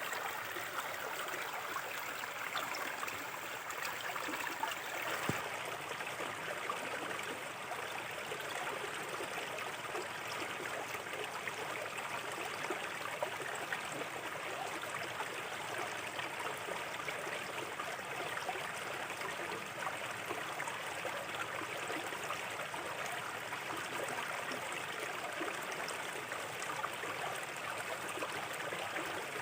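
Small river flowing steadily over stones, a continuous rush of babbling water, with a single faint click about five seconds in.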